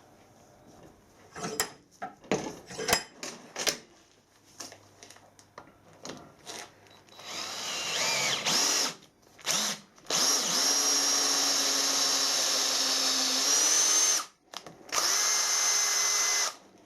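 A few tool clicks and knocks, then a power drill starts, speeds up and runs steadily with a whine. It stops briefly and runs again before cutting off near the end.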